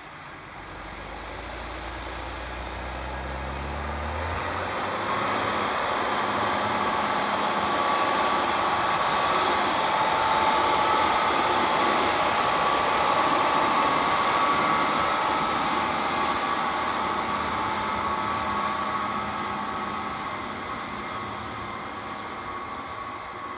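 New Holland T8 tractor's diesel engine working under load as it pulls a ripper-bedder through the soil and passes close by. Its pitch climbs over the first few seconds, with a high whine that then holds steady. It is loudest near the middle and fades as the tractor moves away.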